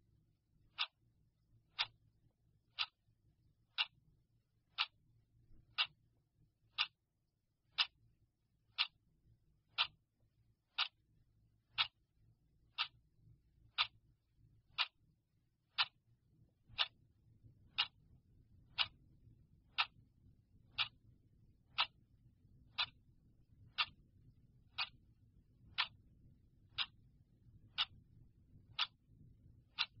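Clock ticking, one sharp tick every second, marking the seconds of a countdown timer.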